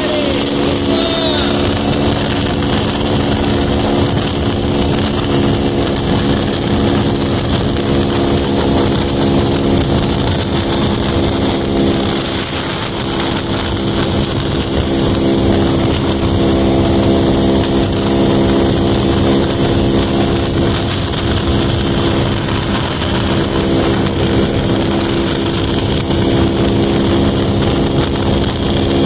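Honda Pop 110i motorcycle's small single-cylinder engine running steadily at cruising speed while being ridden, with wind rushing over the microphone.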